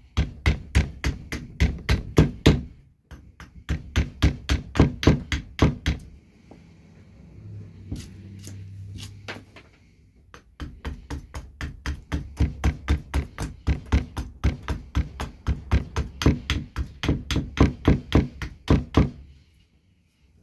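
Carving axe making quick, light chops into a green maple spoon blank resting on a log stump, about four strokes a second. The chopping comes in three runs, with a pause of a few seconds in the middle.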